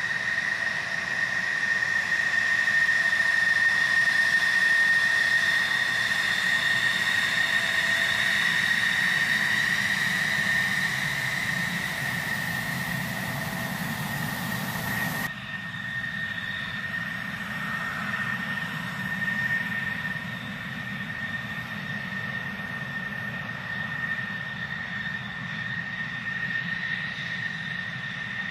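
F-16 fighter's jet engine running at taxi power: a steady high whine over a low rumble. It is loudest in the first few seconds, and the sound changes abruptly a little past halfway.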